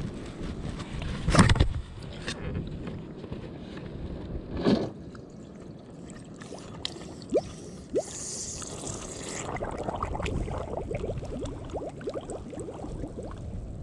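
Shallow pond water splashing as a plastic milk-jug crawfish trap is set back into it, the loudest splash about a second and a half in and another near five seconds. Later the water gurgles, with a run of quick bubbling sounds as the submerged jug fills.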